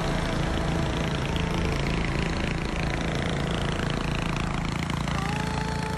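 Small garden tractor engines running as the tractors drive by, with a pitch that slowly falls in the middle as one passes.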